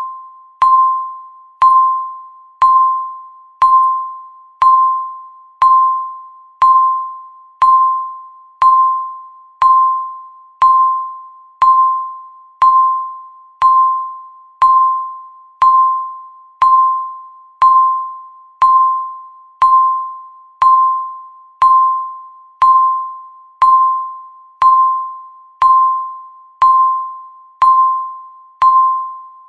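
Countdown timer beeps: a short electronic tone struck once a second, each starting with a sharp click and fading away before the next, about thirty in a row.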